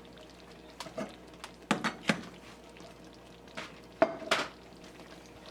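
A utensil knocking and clinking against a cooking pot in about half a dozen separate strikes, some with a short metallic ring; the loudest comes about four seconds in.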